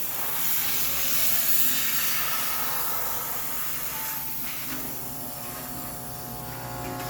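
High-pressure steam cleaner jetting steam in a steady hiss while sterilizing a coin-laundry washing machine.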